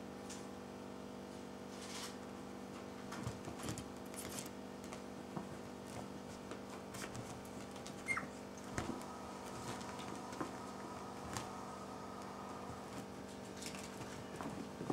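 Italian greyhounds moving about on a bed: soft pattering and rustling of paws on the bedspread with scattered light clicks, over a steady low hum. A brief high squeak about eight seconds in.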